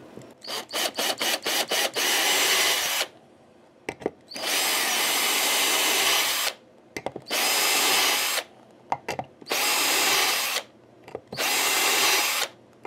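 Cordless drill-driver spinning in repeated bursts, backing out screws: six or seven quick trigger blips, then five runs of one to two seconds each with short pauses between.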